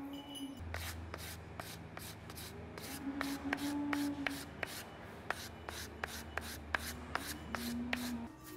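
Hand sanding block rubbed back and forth along the edge of a snakeskin-backed Osage orange bow limb, trimming the skin flush, in quick scratchy strokes about three a second.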